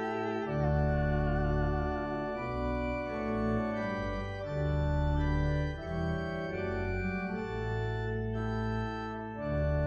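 Organ playing slow, sustained chords over low bass notes that change every second or so. A woman's sung note with vibrato ends about half a second in.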